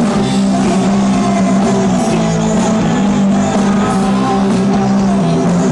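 Live rock band playing loud, with electric guitars and bass holding long sustained notes that shift in pitch every second or so.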